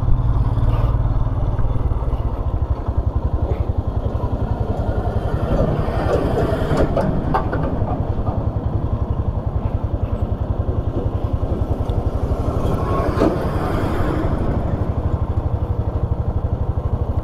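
Royal Enfield Himalayan's 411 cc single-cylinder engine running with a steady low thump.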